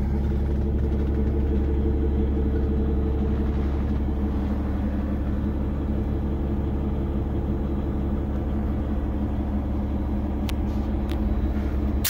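Cummins X15 diesel of a Peterbilt 389 idling steadily, heard from inside the cab, with two light clicks near the end.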